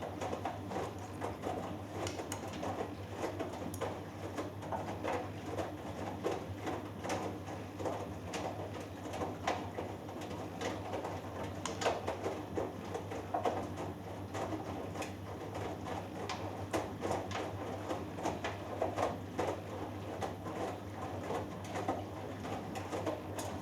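Front-loading washing machine (Hoover Dynamic Next) tumbling a cotton load in the wash phase: clothes and water tumble and splash in the drum with irregular soft knocks, over a steady low motor hum.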